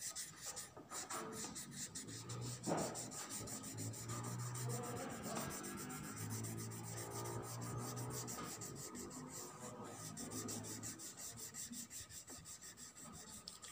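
Orange oil pastel rubbed on paper in quick up-and-down strokes, a faint continuous scratching as a section of a drawing is coloured in.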